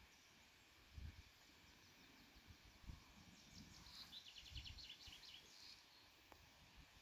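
Near silence: faint outdoor ambience with a few soft low rumbles. About halfway through, a faint, rapid, high-pitched chirping trill comes in for a few seconds.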